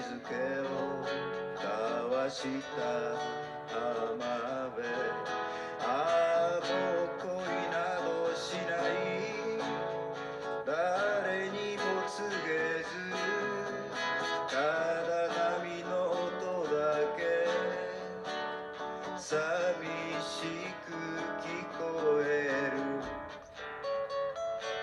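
A man singing into a microphone, accompanied by an acoustic guitar.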